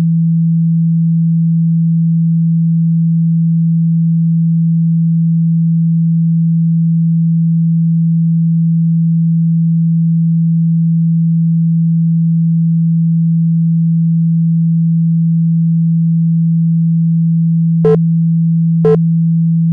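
A steady, loud, low-pitched pure sine tone, played as a phone speaker-cleaning sound meant to vibrate dust and water out of the speaker. Near the end, two short blips about a second apart sit on top of the tone.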